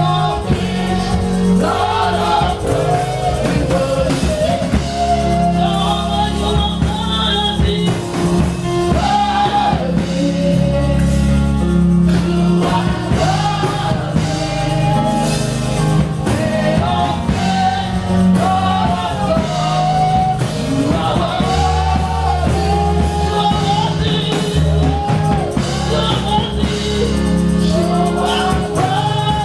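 Gospel worship music: voices singing a melody over sustained bass and a band accompaniment.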